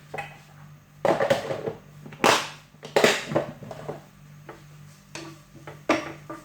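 A utensil scraping and knocking against a frying pan: a run of irregular clatters and scrapes, the sharpest about two and three seconds in, with smaller knocks near the end.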